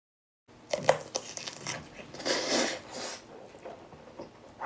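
Dishes and cutlery being handled on a table: a run of clinks and knocks, the loudest about a second in, with a short rustle around two seconds in.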